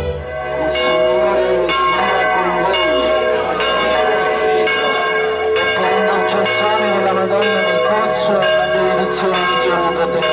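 Church bells pealing, many overlapping strikes ringing on together in an uneven run.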